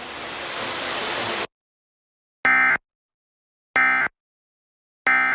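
A hiss that grows louder and cuts off about a second and a half in, then the Emergency Alert System's end-of-message code: short, identical bursts of shrill warbling data tones, three in all about a second and a half apart, marking the end of the alert.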